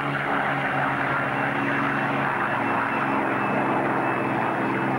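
Propeller aircraft engine droning steadily, its pitch shifting slightly partway through.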